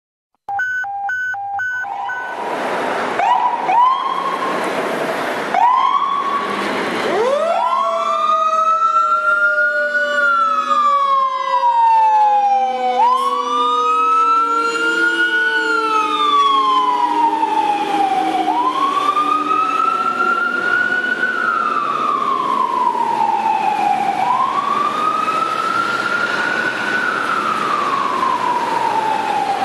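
Fire engine sirens on an emergency response. First there are short blasts and whoops. About seven seconds in, a Federal Q2B mechanical siren spins up and then coasts slowly down in pitch, while an electronic siren wails up and down about every five and a half seconds.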